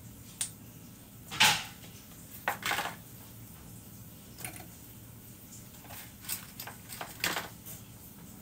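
A spatula scraping cream cheese out of foil tubs and knocking against the stainless steel bowl of a stand mixer: a run of short scrapes and knocks, the loudest about one and a half seconds in.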